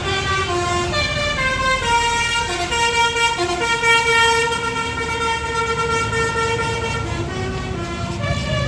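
Telolet bus horn playing a melody: a run of held notes stepping from pitch to pitch, several sounding together, over the low rumble of the bus's engine.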